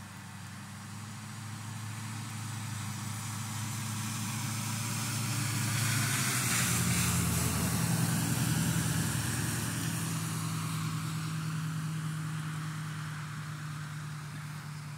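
A pickup truck driving past on a wet road: tyre hiss on the water and engine hum swell to a peak about halfway through, then fade. Steady rain falls throughout.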